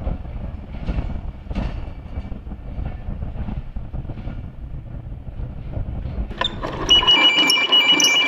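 Railway wheels rumbling along the track with scattered clicks over the rail joints. The rumble cuts off near the end, and a rapid, high, pulsing electronic ring starts in its place.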